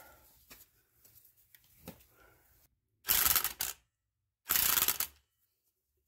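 Two short bursts of an impact wrench, about a second and a half apart, running down the nut on the strut's top mount over the new strut bearing. Before them, light clicks of parts being handled.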